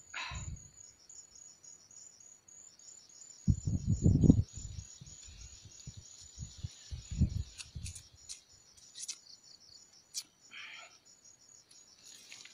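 An insect chirping in a fast, steady pulse throughout, high-pitched. A loud low bump comes about three and a half seconds in and another about seven seconds in, with a few short clicks after.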